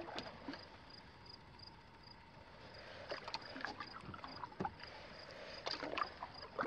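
Canoe paddle strokes in calm lake water: quiet dips and pulls with small splashes and drips, coming in a few clusters around the middle and near the end.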